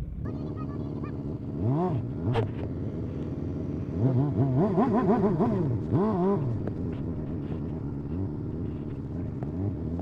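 Small motorcycle engine running and revving up and down in quick rises and falls, with the strongest throttle blips from about four to six and a half seconds in.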